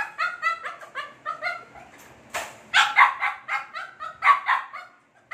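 Chow chow puppy yipping and whining in quick runs of short, high-pitched calls while it tries to climb out of its wire crate.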